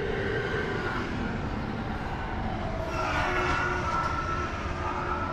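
Steady mechanical hum of heavy diesel trucks running, with a higher whining tone that comes in about three seconds in.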